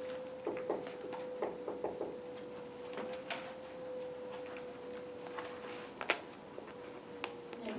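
Dry-erase marker writing on a whiteboard in a quick run of short strokes during the first two seconds, then a few scattered sharp clicks, the sharpest about six seconds in, all over a steady hum.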